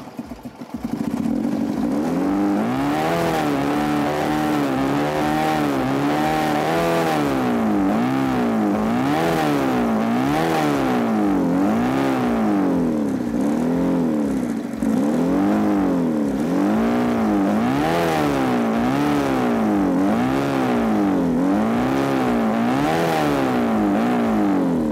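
Car engine running with its carburetor removed, fed gasoline by hand from a syringe straight into the intake manifold. The revs surge and sag about once a second because the fuel goes in jerky doses rather than a steady feed.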